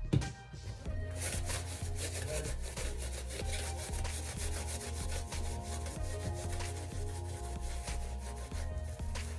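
A cotton pad is rubbed rapidly back and forth over the leather toe of a white Nike Air Force 1 sneaker, stripping off the factory finish. The scrubbing starts about a second in and runs as a quick string of strokes over background music.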